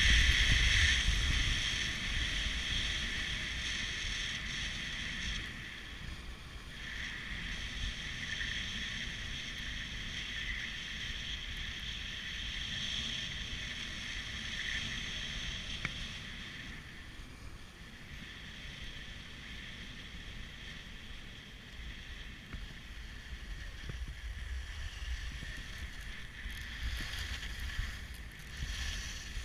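Skis sliding and scraping over groomed snow during a downhill run, a steady hiss, with wind rumbling on the action camera's microphone. Loudest in the first few seconds, easing after about six seconds.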